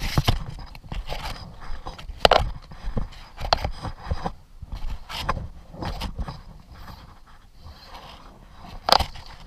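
Irregular scraping, rustling and sharp knocks from gear being handled close to a body-worn camera, with the loudest knocks near the start, about two seconds in, and near the end.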